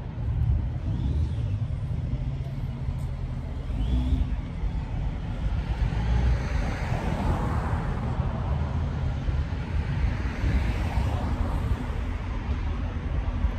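A car engine running with a steady low rumble; the noise swells about halfway through and again near the end.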